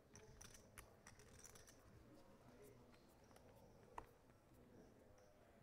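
Near silence: faint room tone with a few soft, scattered clicks, one a little sharper about four seconds in.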